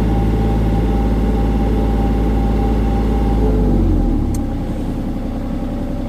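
Hitachi ZX35 mini excavator's diesel engine running steadily at working revs, then dropping to a lower, quieter speed about four seconds in, with a single sharp click just after.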